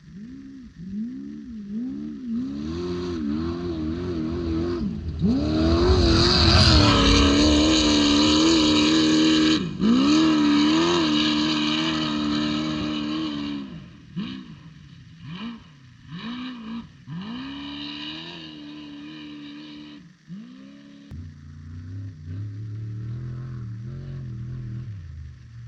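Off-road desert race vehicle's engine revving hard, its pitch swooping up and down with throttle and gear changes. It is loudest from about six to thirteen seconds in as it passes close, then fades away in repeated short revs. From about twenty-one seconds in, a deeper engine rumble joins.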